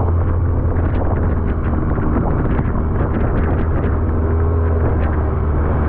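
Longtail boat's engine running steadily at speed with a loud, low drone, with wind buffeting the microphone.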